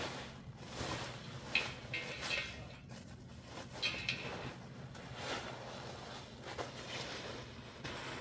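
Light, irregular clattering and knocking of objects being handled, over a steady low hum.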